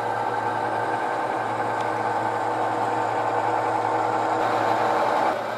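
HO scale GP9 model diesel locomotive running along the track: a steady mechanical hum that falls away about five seconds in.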